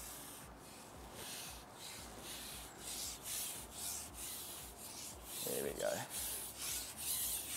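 Rustling, rubbing noise coming in short, uneven bursts, with a brief faint voice-like sound a little before the end.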